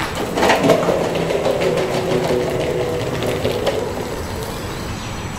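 Skateboard wheels rolling over a concrete floor: a steady rumble with scattered clicks, easing off slightly in the last second or so.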